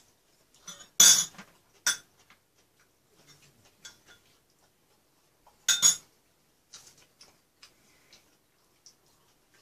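A metal spoon and chopsticks clinking and scraping against a bowl while eating. There are two loud clatters, about a second in and just before the six-second mark, with a smaller clink shortly after the first and light ticks in between.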